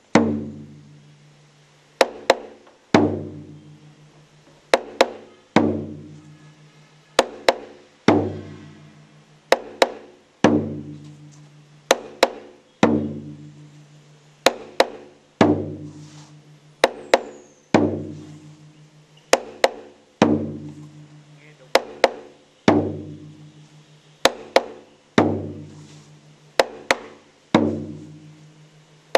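Drum accompaniment in a steady rhythm: sharp wooden clicks alternating with low, ringing drum beats, roughly one beat a second, each beat dying away before the next.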